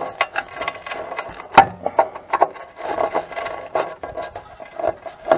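Screwdriver scraping and clicking in the dirt-clogged screw heads of a tractor's metal battery-box cover, in irregular scrapes with sharp clicks. The loudest click comes about a second and a half in.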